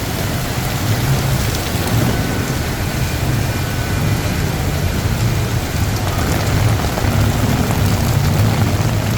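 Heavy monsoon rain pouring steadily, with a low rumble of traffic underneath.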